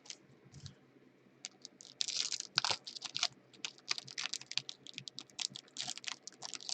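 Typing on a computer keyboard: a quick, irregular run of light key clicks that starts about a second and a half in.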